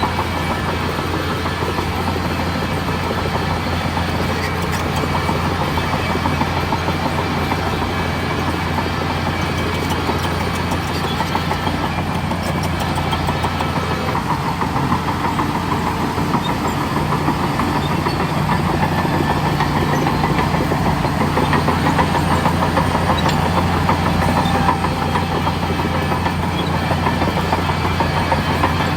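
Bulldozer's diesel engine running steadily at work, a constant low hum with a faint clatter over it, getting a little louder past the middle.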